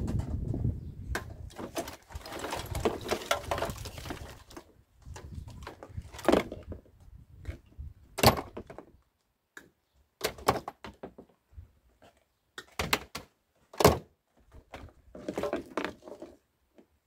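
Side cutters snipping through appliance cables, with rustling and clunks as wire and plastic appliances are pulled about. Short sharp snaps and knocks come one at a time throughout; the loudest is near the end.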